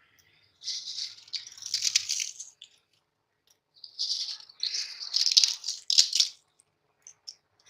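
Crisp fried papri pieces rattling and crackling as they are crumbled and scattered over the dish, in two spells of dry, crunchy rattle with a few sharp clicks near the end of the second.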